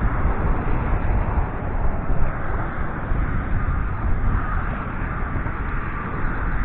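Wind rushing over the camera microphone: a steady, noisy rumble heaviest in the low end, with no distinct strokes or tones.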